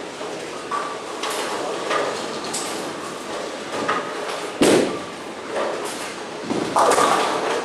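A bowling ball lands on the lane with a loud thud as it is released, then a longer clatter of pins being struck follows near the end, over the steady knocking and rumble of a busy bowling alley.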